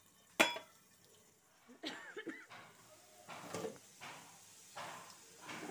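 A single sharp metal clank of kitchenware about half a second in, as a pan lid or utensil is handled on a steel gas stove, followed by a few faint clatters.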